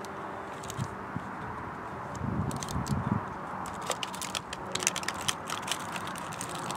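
Small packet being handled and opened by hand, with a run of crinkles and light clicks from about two seconds in, over a steady hum of distant motorway traffic and wind.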